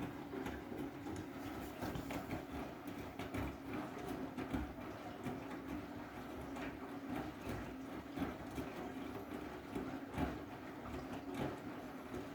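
Front-loading washing machine running a wash with heavy blankets inside: a steady motor hum under irregular knocks and clunks as the drum tumbles the load.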